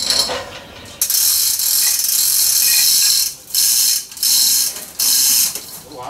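Hand-operated ratchet hoist being worked in four spells of dense clattering, one of about two seconds and then three shorter ones, taking up tension to lift the heavy laminated wooden bow stem.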